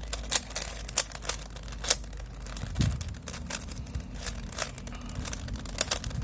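Rubik's cube being scrambled by hand: the plastic layers turning with quick, irregular clicks and clacks.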